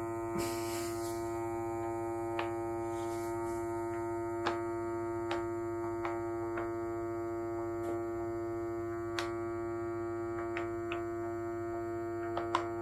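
eSUN eVacuum Kit Pro's small USB-powered electric vacuum pump running with a steady, even hum at one pitch as it draws the air out of a zip-seal filament storage bag through its valve. A few faint light clicks sound now and then over the hum.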